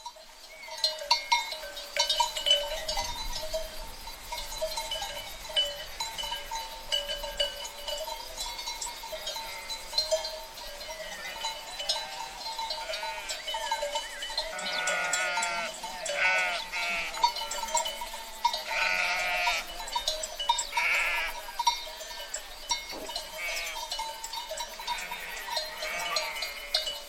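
A flock of sheep with bells: the bells clink and ring continuously. Several sheep bleat, mostly in the second half.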